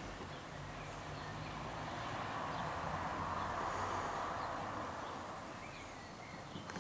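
Outdoor garden ambience: a distant rushing hum that swells to a peak about halfway through and then fades away, with faint bird chirps scattered over it.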